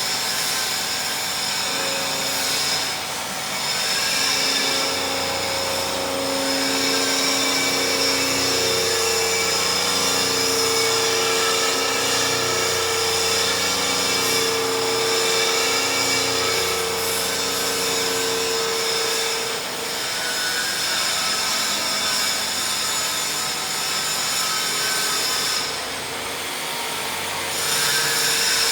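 Industrial machinery running steadily: a loud hiss with humming tones that shift every second or few.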